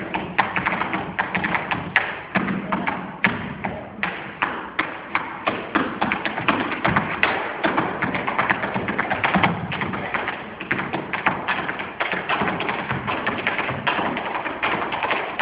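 Tap shoes striking a stage floor in a fast, dense stream of taps with heavier thuds mixed in: a tap dancer's solo.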